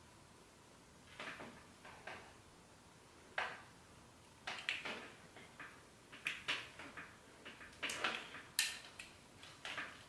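Faint handling sounds from a 1¼-inch Babyliss Pro curling iron being worked through hair: a string of short, irregular clicks and rustles as the clamp is opened and closed and hair is wound around the barrel, starting about a second in.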